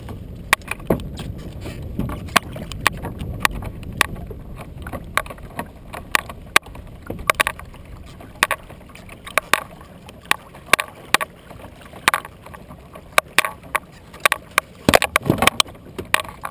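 Small waves slapping against a plastic Hobie kayak hull: irregular sharp knocks and splashes, several a second at times, over a low wind rumble that eases after the first few seconds.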